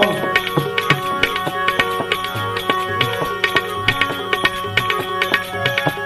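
Instrumental break in a devotional bhajan: a hand drum playing a steady rhythm of strokes under sustained held melodic notes, with no singing.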